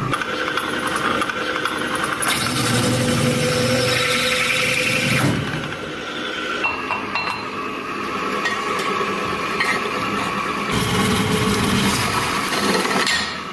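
A power tool running and working material, with scraping and rubbing noise and a faint steady motor whine. It comes in several segments that change abruptly.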